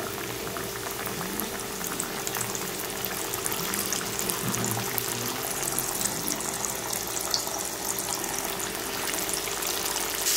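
Flour-coated chicken pieces deep-frying in hot oil in a kadhai (wok): steady bubbling with fine crackling.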